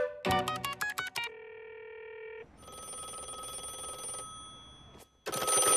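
Push-button telephone being dialed: a quick run of short keypad beeps, then a steady tone for about a second. The call then rings through as a telephone bell ringing twice, the second ring louder, starting near the end.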